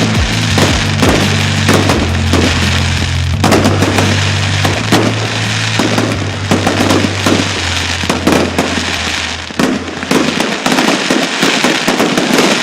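Fireworks going off in rapid succession, dense crackling and banging several times a second, over music with held low bass notes that drop away about ten seconds in.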